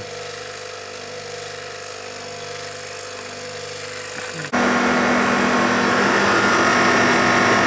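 A steady mechanical hum with a few steady tones. About four and a half seconds in it jumps suddenly to a louder, steady running sound with a hum and a whine: the refrigeration condensing unit running, with its new Maneurop compressor and condenser fans.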